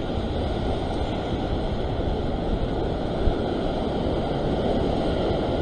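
Rough surf churning and washing around a rock ledge: a steady, unbroken rush of breaking water, with wind on the microphone.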